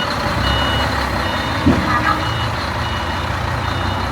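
A reversing alarm on heavy machinery, sounding a repeating high beep over the steady low running of an engine, with one short knock about two seconds in.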